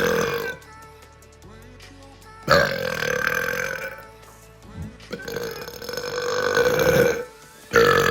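A person belching loudly several times in a row: one burp ending just after the start, another about two and a half seconds in, a long drawn-out one of about two seconds from around five seconds in, and a fourth starting near the end.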